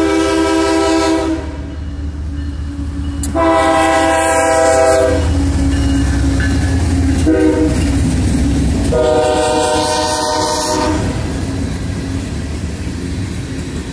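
CSX freight train's diesel locomotive horn sounding the grade-crossing signal, long, long, short, long, as the locomotives pass close by with a low engine rumble. After the last blast the rumble of the hopper cars rolling past carries on.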